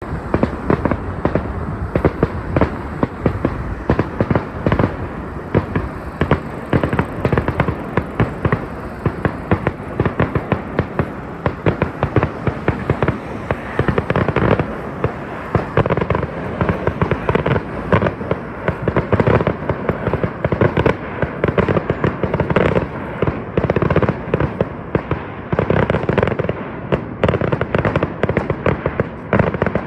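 Fireworks grand finale: shells bursting in a dense, continuous barrage of overlapping bangs, several a second.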